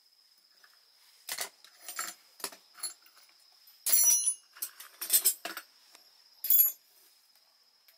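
A run of sharp clinks and rattles from hard objects being handled, about nine at uneven intervals, the loudest about four seconds in and again near the end, over a faint steady high-pitched tone.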